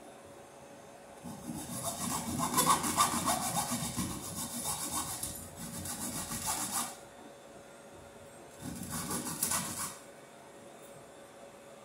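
Hand tool scraping and rasping against a metal electrical junction box in quick strokes: one long stretch of about five seconds, then a shorter one of about a second and a half.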